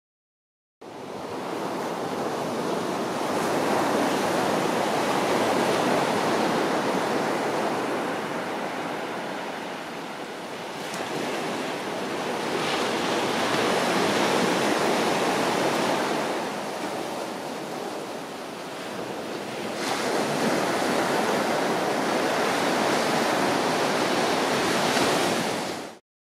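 Pacific Ocean surf: waves breaking and washing on the beach in a steady rush that swells and eases about every eight seconds. It cuts in abruptly shortly after the start and cuts off just before the end.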